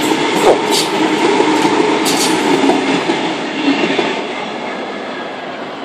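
Tangara double-deck electric train passing at speed: a steady rumble and rail noise with a few sharp wheel clicks in the first couple of seconds, fading over the last two seconds as the train moves away.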